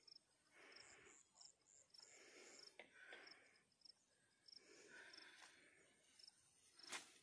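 Faint insect chirping, short high pulses repeated at a steady rate, with soft rustling in between and one sharp click near the end.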